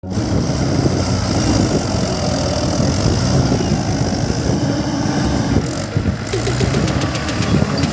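Mahindra tractor's diesel engine running steadily.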